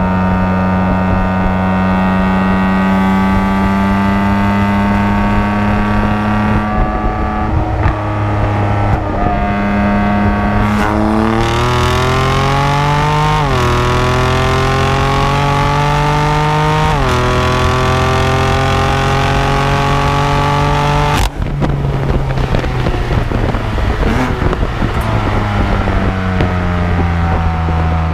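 Twin-turbo sports car engine under way. It pulls steadily with slowly rising pitch, then accelerates harder, with upshifts about two-thirds of the way in where the pitch drops and climbs again. After an abrupt break it settles to a steady drone that slowly falls in pitch as the car eases off.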